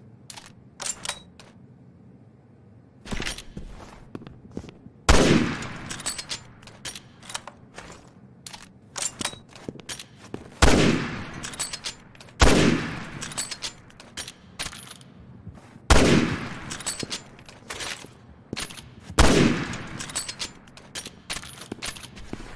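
SIG-Sauer SSG 3000 bolt-action sniper rifle firing about five loud shots, each with a long echoing tail. Between shots come quick runs of sharp metallic clicks, the bolt being worked to chamber the next round.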